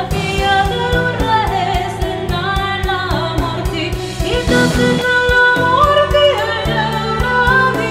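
Symphonic metal song: a held, sliding sung melody over sustained low chords and a steady drum beat.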